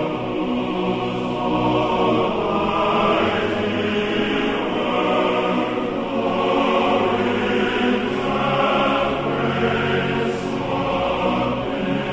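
Background music: a choir singing long, held notes in a chant-like style, swelling and fading in slow waves.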